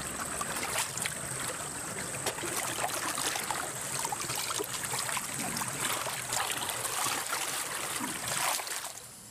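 Muddy water sloshing and splashing as a soldier in a ghillie suit crawls on his belly through a shallow water-filled ditch, with many small splashes; it stops abruptly near the end.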